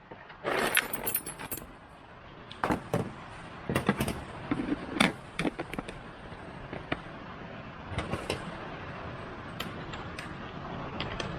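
Metal key blanks clinking as they are dropped back into a Vevor rotary tumbler, then the tumbler running with a steady noise and scattered clinks of the keys and cleaning media tumbling inside.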